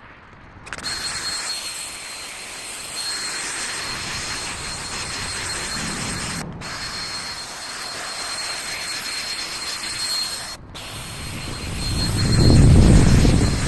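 Electric drill spinning a polishing pad with compound against a plastic headlight lens: a steady motor whine with a thin high tone, cut off briefly twice. A louder low rumble comes near the end.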